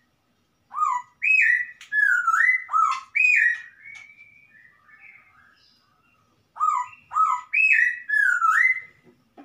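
A laughingthrush (poksay) singing two loud runs of rich whistled notes, each note slurring sharply downward. The first run trails off into softer notes, and the second starts about six and a half seconds in.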